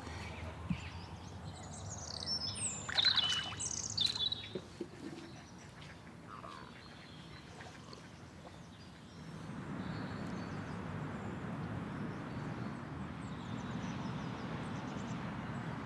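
Birds chirping and calling, several short chirps a couple of seconds in, over quiet outdoor ambience. About halfway through, a steady background hiss sets in.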